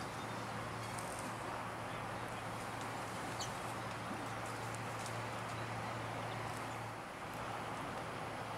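Garden ambience: a steady background hiss with a low hum that stops about seven seconds in, and a single faint, short high chirp about three and a half seconds in.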